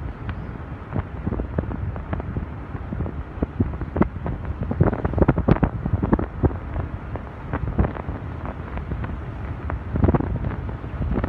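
Wind buffeting the microphone over a steady low rumble, with frequent irregular knocks and crackles.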